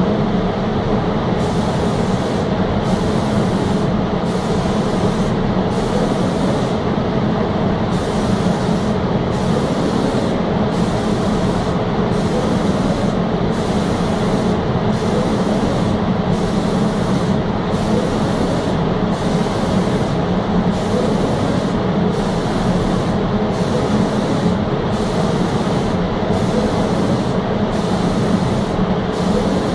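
Automatic reciprocating spray gun spraying PU finish, its hiss switching on and off about every 1.2 seconds as the gun sweeps back and forth over the panels, over a steady machinery hum.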